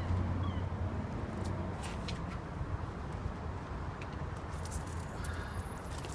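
Gulls calling now and then over a steady low rumble, with a few light clicks.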